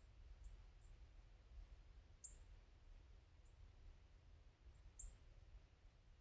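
Near silence with a low steady rumble, broken by about five short, high, down-sweeping bird chirps, the loudest about two and five seconds in.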